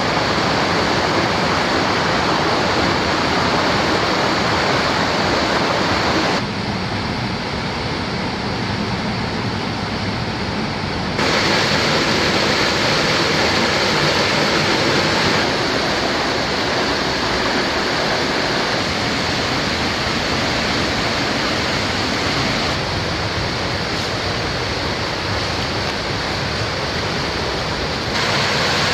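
Steady rush of flowing water from a creek or waterfall. Its tone and loudness change abruptly several times.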